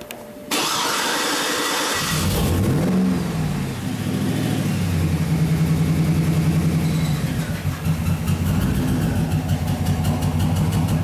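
2007 Cadillac Escalade V8 cranked by the starter for about a second and a half, then catching, flaring up in revs and settling into a steady idle. Cylinder 8 is still misfiring, so the fault stays with that cylinder rather than the coil.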